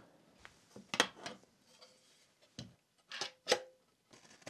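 Metal frame rails of an xTool D1 Pro laser engraver being pushed and snapped together by hand: about five sharp clicks and knocks, irregularly spaced.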